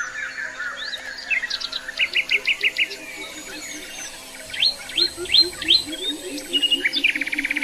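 Several birds chirping and singing: runs of short repeated notes, a few louder sharp chirps past the middle, and a fast trill near the end.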